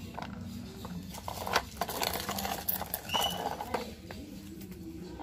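Plastic toy garbage truck being handled: scattered light plastic clicks and knocks, with a short high squeak a little after three seconds in.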